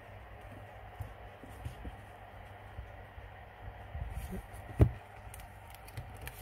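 Handling noise from a thick paperback book as it is turned over and its cover opened: light taps and rustles, with one sharp knock about five seconds in.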